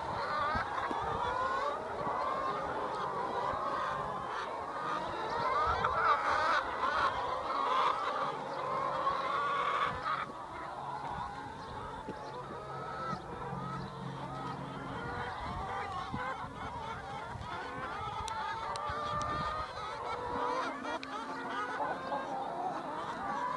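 A large flock of brown laying hens calling all at once, many short overlapping calls running together into a steady chorus. It is busiest and loudest in the first ten seconds and thins out after that.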